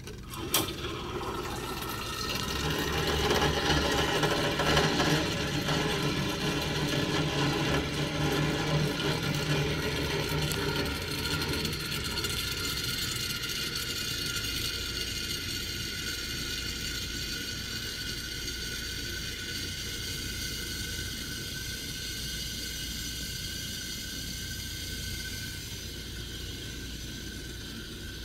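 Pelton & Crane Omniclave OCM autoclave: a click as its selector knob is turned, then a steady rushing hiss from the machine. The hiss is loudest for several seconds and then eases to a lower, even level.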